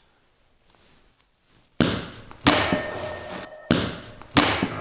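Champagne bottle bursting open: a sudden loud pop about two seconds in, then more sharp bursts with hissing spray as the foam gushes out, four bursts in all.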